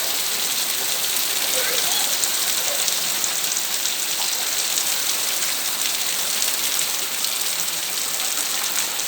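Steady rain falling and spattering on surfaces: a dense, even hiss dotted with many small drop ticks.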